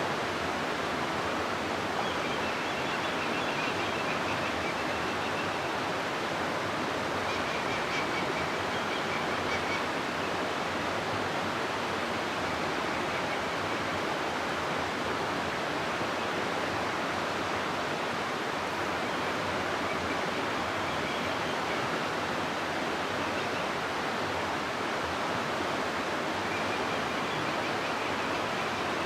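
River water rushing steadily through a rocky gorge: an even, unbroken roar of flowing water.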